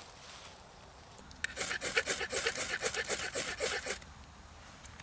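Rapid scraping strokes, about five a second, starting about a second and a half in and stopping after about two and a half seconds, while a fire is being lit in a tinder bundle.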